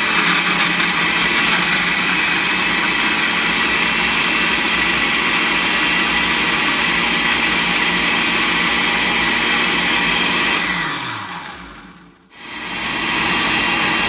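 Electric countertop blender grinding chopped strawberries in water, its motor running steadily and loudly. About eleven seconds in it is switched off and winds down with a falling pitch, then starts again a second later.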